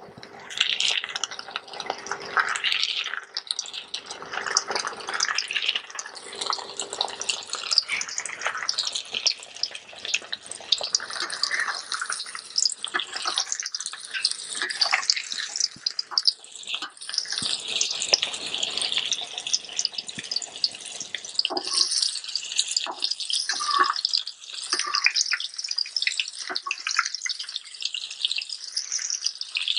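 Flour-coated sea bass pieces deep-frying in very hot oil in a wok, sizzling and crackling steadily throughout.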